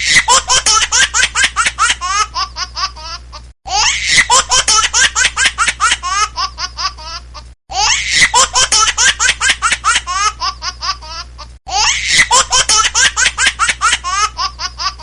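Laughter ringtone: a recorded laugh of fast 'ha-ha' bursts that slow down toward the end of each pass, looped about every four seconds with a short cut between repeats, four times over.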